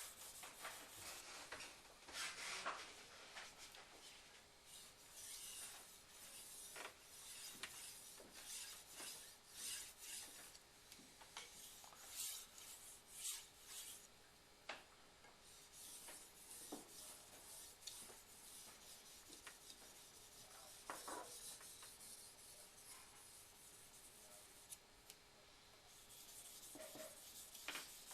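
Steel knife blade being stroked back and forth across a fine waterstone: faint, repeated scraping strokes at an irregular pace as the edge is polished to a micro-bevel.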